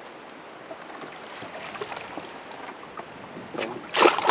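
Hooked giant snakehead thrashing at the surface beside a boat: low water noise, then a sudden loud splash near the end.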